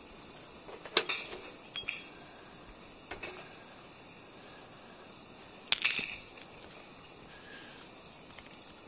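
Bow saw being set down on a log: a sharp metallic clink and rattle from the blade about a second in, followed by a few lighter knocks. About six seconds in comes a louder short clatter of knocks as the cut maple round is handled.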